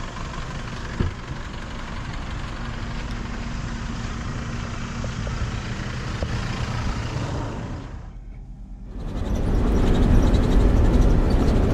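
A 4WD vehicle's engine running steadily, with a single sharp knock about a second in. The sound drops out briefly near eight seconds, then returns as a louder, deeper rumble.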